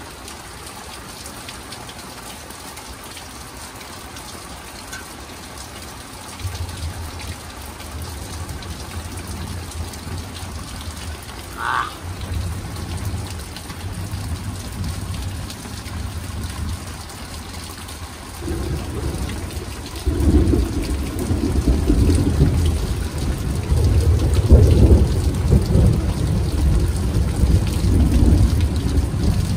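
Rain falling steadily during a thunderstorm, with thunder rumbling. The low rumble comes in about six seconds in and grows much louder in the second half.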